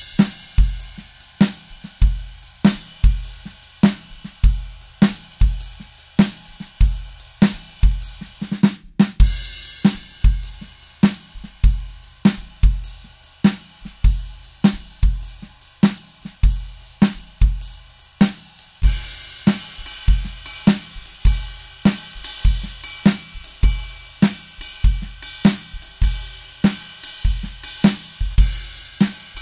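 Drum kit played in a steady groove on bass drum, snare and hi-hat, first with Vic Firth AJ1 sticks with their elongated taper after a brief break about nine seconds in, having started with standard-taper Vic Firth 5B sticks. From about nineteen seconds in the cymbals ring out brighter, with the 5B stick played on the ride cymbal near the end.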